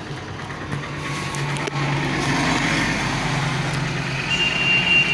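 A motor vehicle's engine running steadily with street noise. A high, steady beep comes in near the end.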